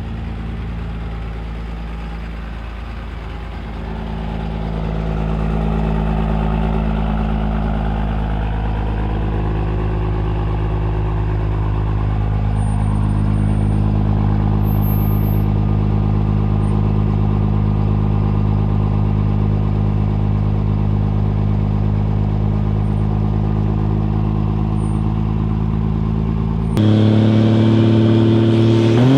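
Ram heavy-duty pickup's Cummins diesel engine idling with a steady low rumble. About 27 s in the engine note steps up and gets louder as the truck is brought up on revs at the start line.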